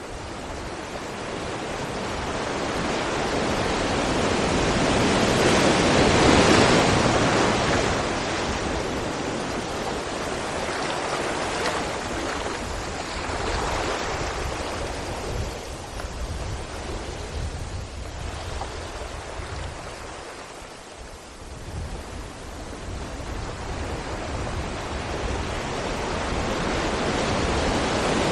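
Sea waves breaking against rocks, a steady rushing wash that swells to a loud crash about six seconds in, surges more softly several times, ebbs, then builds again near the end.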